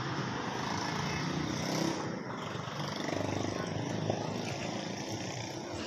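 A vehicle engine running steadily, louder for the first two seconds and then easing off a little.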